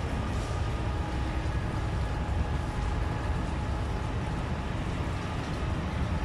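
Intermodal container freight train passing on the near track: a steady low rumble of the wagons' wheels rolling on the rails, with the Class 66 diesel locomotive at its head pulling away.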